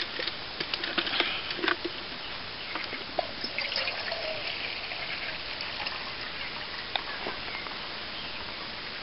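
Water trickling from a bottle into a steel cup, after a few sharp clicks in the first couple of seconds.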